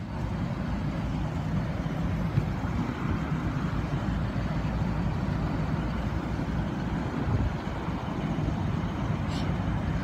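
Carrier rooftop package air-conditioning unit running, its compressor and condenser fan making a steady, even hum.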